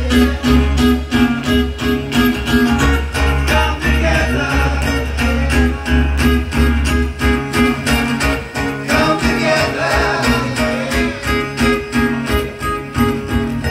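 Live band music: acoustic guitars and voices over a steady beat of about four strokes a second, with a low bass line that drops out about halfway through.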